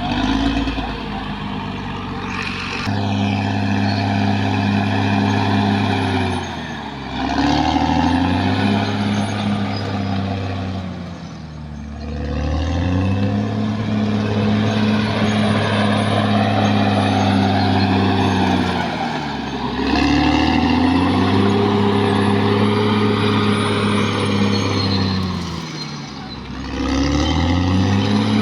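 Caterpillar D6R XL bulldozer's diesel engine running hard, its note dipping and climbing back up about five times, every five to seven seconds, as the load on the machine changes.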